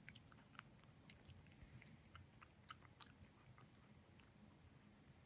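A cat chewing and lapping rice and green curry off a wooden floor: faint, irregular wet clicks and smacks, several a second at first, then sparser.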